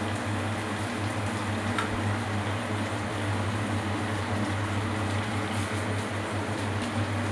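Steady low mechanical hum with an even hiss over it, with one faint tap about two seconds in.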